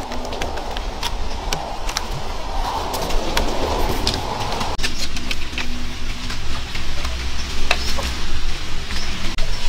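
Rustling and scraping of a cord being wrapped and pulled tight around wooden poles for the first half, over a steady low rumble, with scattered sharp clicks and knocks.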